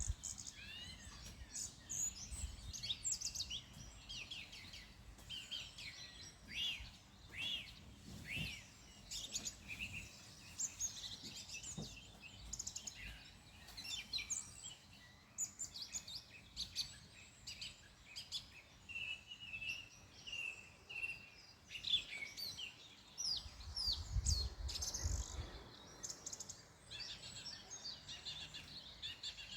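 Several wild birds singing and calling, with many short chirps and whistled phrases overlapping throughout. A brief low rumble comes in about 24 seconds in.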